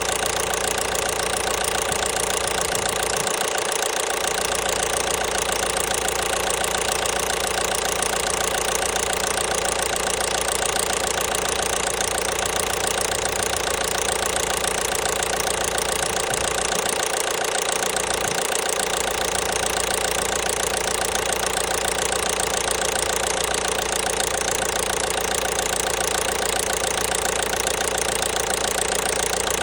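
1.5 BlueHDi (DV5RC) four-cylinder turbodiesel running steadily at idle with an engine knock.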